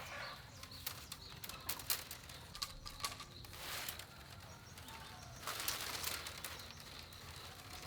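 Bamboo strips and ties being handled: scattered light clicks and taps, with two bursts of rustling about three and a half and six seconds in.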